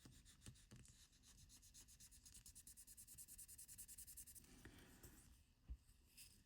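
Faint, quick, even back-and-forth rubbing, several strokes a second, as a small watch part is rubbed or scrubbed clean by hand; it stops about four and a half seconds in, followed by one soft knock.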